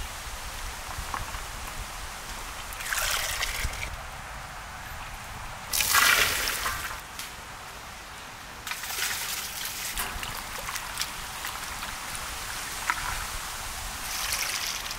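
Hot water sloshing and dripping as blanched cauliflower florets are scooped out of a large pot with a perforated steel ladle, in several separate splashy bursts, the loudest about six seconds in.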